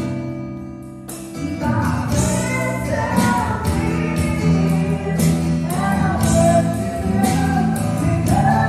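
Live worship band: several voices singing together over acoustic guitar, electric bass and drums. A held chord opens, and about a second in the voices and drum beat come back in.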